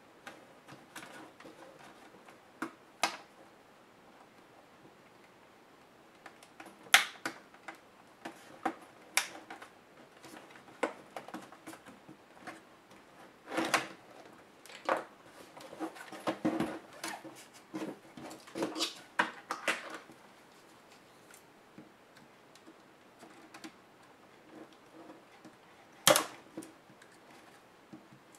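Irregular clicks, taps and knocks of a Samsung NP305E7A laptop's plastic case and small tools being handled during disassembly. There is a louder knock about seven seconds in, a busy stretch of clicking in the middle, and another louder knock near the end.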